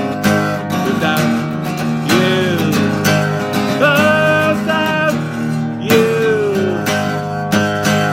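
Steel-string acoustic guitar strummed in a steady rhythm, with a man singing long held notes over it in places.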